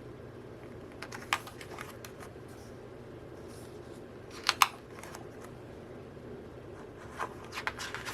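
Album cards and printed paper being handled: scattered light clicks and rustles, a sharp double click about halfway through and a cluster of them near the end, over a faint steady room hum.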